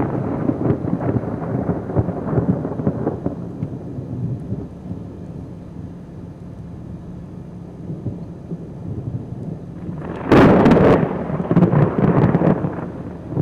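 Thunder from close lightning: a rumble dies away over the first few seconds. About ten seconds in a sudden, very loud crack of thunder hits, followed by rolling rumbles.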